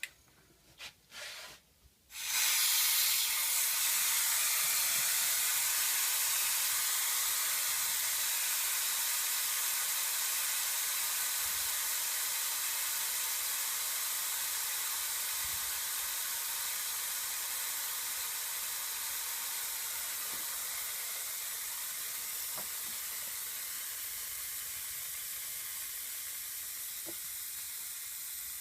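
A few light clicks, then from about two seconds in compressed air starts hissing out of the air compressor's tank, loud and steady at first and slowly fading as the tank pressure drops.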